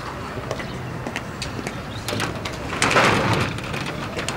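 Outdoor background noise with scattered light clicks, and a louder rushing noise that swells and fades about three seconds in.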